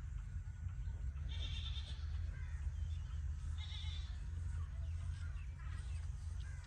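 A steady low rumble with two short, high-pitched animal calls about two seconds apart.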